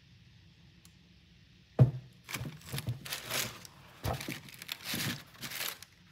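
A single sharp knock about two seconds in, then about four seconds of irregular crinkling and rustling of tissue paper as a shoe is handled in a cardboard shoebox.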